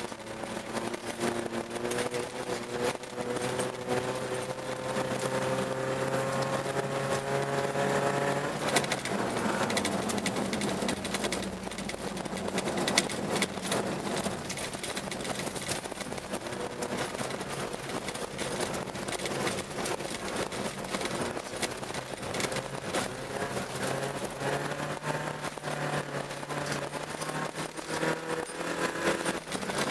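Car engine heard from inside the cabin, its pitch climbing steadily under acceleration for about eight seconds. It then gives way to a rough rush of tyres on snow and ice, peppered with sharp ticks and knocks. Near the end the engine note comes up again, rising.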